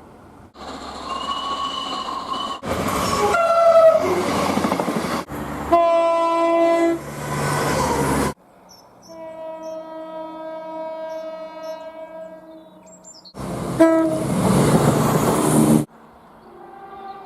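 Train horns sounding in about half a dozen short clips cut hard one after another, each a chord of steady tones, most of them loud over the rush of a passing train. A quieter, longer horn chord holds in the middle.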